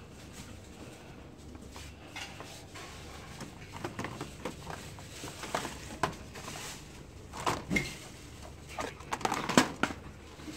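Stack of thin clear plastic containers being handled on a shelf: scattered light clicks and knocks, growing busier towards the end, over a low steady background hum.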